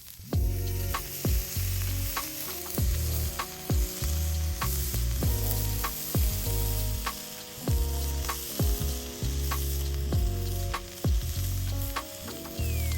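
Meat sizzling and frying on an iron griddle plate, under background music with repeating plucked notes and a bass line.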